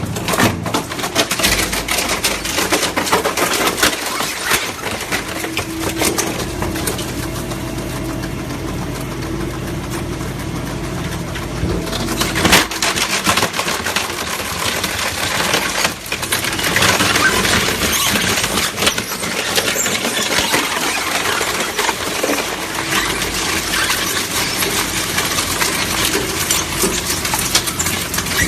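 Dragon Shred DS4080 pusher-type single-shaft shredder running and shredding refrigerator doors: a continuous dense crunching and cracking over a steady machine hum, with a sharp crack about halfway through.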